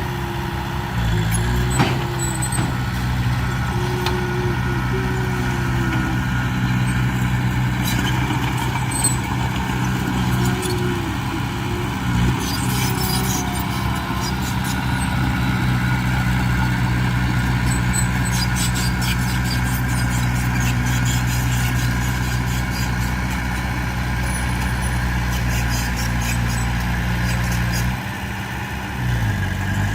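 Heavy diesel engine of earthmoving machinery running steadily under load, its note dipping briefly near the end before picking up again, with scattered light clanks and squeaks.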